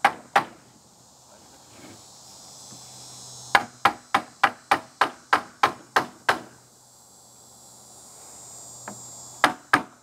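Claw hammer striking a wooden block held against the end of a fiberglass mast tube, driving a glued section home. Two blows at the start, a quick run of about a dozen blows at roughly four a second from about three and a half seconds in, and two more near the end.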